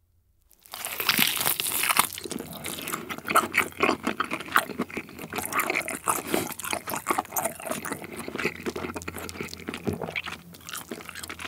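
A bite into a grilled tomahawk steak, meat torn off the bone about a second in, followed by steady chewing of the steak with many small crackling smacks.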